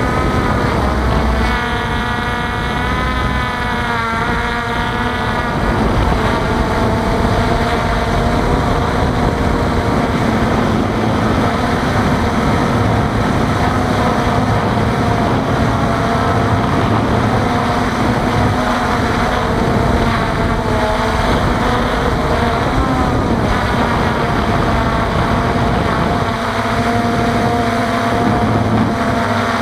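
Multirotor drone's electric motors and propellers whining steadily, heard through the onboard camera's microphone. The pitch wavers up and down as the throttle changes, most plainly a couple of seconds in.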